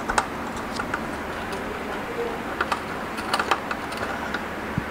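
Small irregular clicks and ticks of a precision screwdriver turning a tight screw in a DVR's case cover, over a steady background hum.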